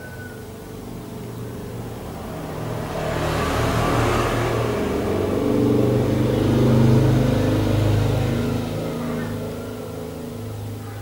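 A motor vehicle's engine going by: the sound builds over a few seconds, is loudest around seven seconds in, then fades.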